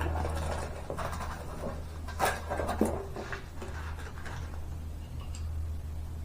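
Light metal scraping and a few clicks as a steering rod end is threaded into a drag link by hand, the loudest clicks about two seconds in, over a steady low hum.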